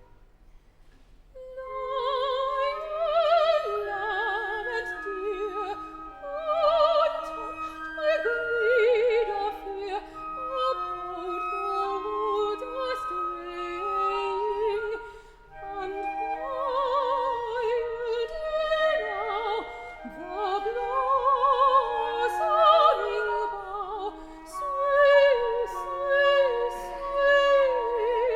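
Soprano singing an opera aria with wide vibrato over held notes from an orchestral accompaniment; the voice comes in about two seconds in after a short pause.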